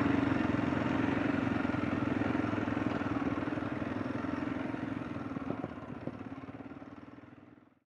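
Kawasaki KLX230 dirt bike's single-cylinder engine running steadily as it rides, fading out near the end.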